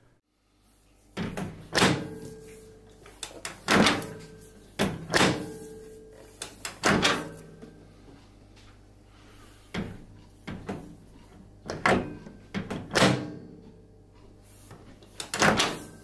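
Door of a Gorenje MO20E1B microwave oven being opened with its push button and shut again, over and over: about ten sharp latch clacks, each with a brief ringing of the cabinet.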